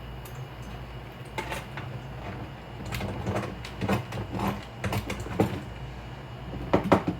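Parts of a recessed light fixture being handled and fitted together: irregular small clicks and knocks, the loudest cluster near the end, over a steady low hum.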